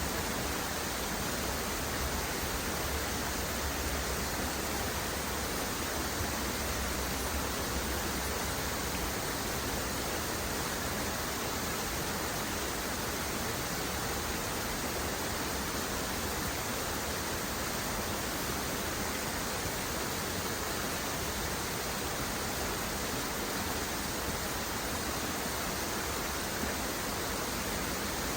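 Waterfall rushing in a steady, unchanging roar of falling water.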